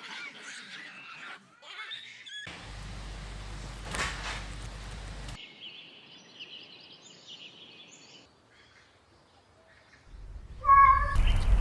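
A cat meowing in several short edited clips, the calls high and thin. A louder, noisy recording cuts in near the end.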